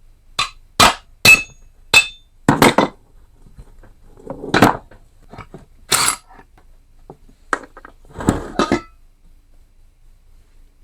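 Hammer blows driving the crankshaft out of a Tecumseh lawnmower engine: about a dozen sharp metal-on-metal strikes at an uneven pace, several with a short ring, stopping near the end.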